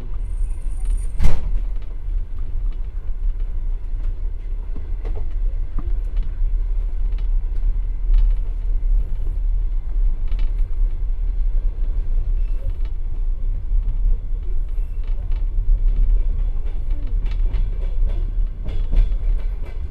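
Passenger train car rolling at low speed, heard from inside a compartment: a steady low rumble with scattered clicks from wheels and fittings. One sharp knock, the loudest sound, about a second in.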